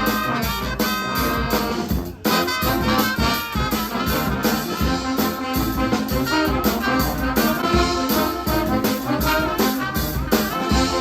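A brass pep band playing trumpets and trombones over a steady beat. The music breaks off for a moment about two seconds in, then picks up again.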